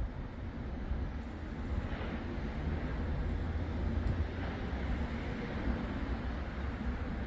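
Steady rumble of road traffic, swelling twice as vehicles pass.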